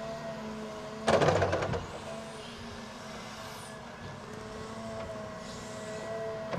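Caterpillar 323 excavator's diesel engine and hydraulics running with a steady whine that shifts slightly in pitch as the arm moves. About a second in, a loud rattling clatter, lasting under a second, as the bucket dumps its load of soil and stones.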